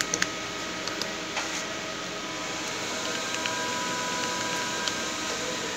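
Steady hum of a powered-up, idling Muratec MW100 CNC lathe, its axes homed and the spindles stopped. A few light clicks sound right at the start, and a faint whine joins about halfway.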